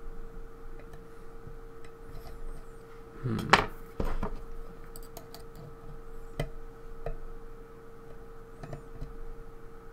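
Small metal clicks and scrapes of a lock pick and tension tool working the pin tumblers of a challenge lock, with a louder clatter about three and a half seconds in. A faint steady hum runs underneath.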